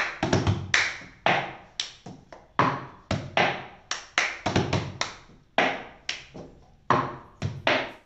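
Sharp hand claps and taps in a quick, uneven rhythm, each dying away briefly, from a hand-clapping routine played over an upturned plastic cup on a tabletop.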